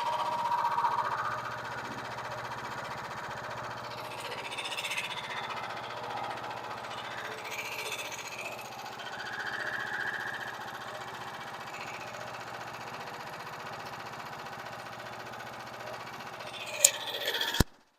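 Frontier portable bandsaw mill running steadily with an even mechanical hum, as it saws a board from the log. A sharp click near the end, then the sound cuts off suddenly.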